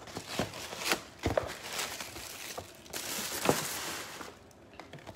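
Paper gift bag and wrapping being handled, rustling and crinkling in irregular bursts with a few light clicks, and a longer, denser crinkle about three seconds in.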